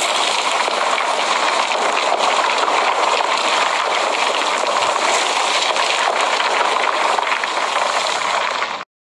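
Steady, even rushing noise of water, rain-like, that cuts off abruptly near the end.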